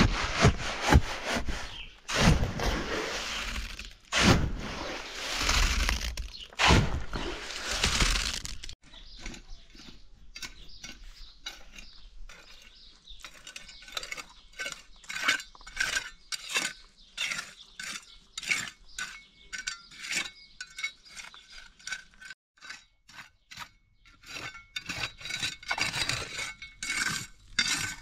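Hard objects being scraped and knocked together, loud and dense for the first several seconds. After an abrupt change there is a long run of short taps and clinks, some of them ringing briefly.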